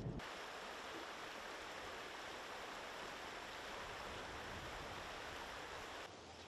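Steady rush of a flowing river, an even hiss of moving water, that cuts in just after the start and drops away about six seconds in.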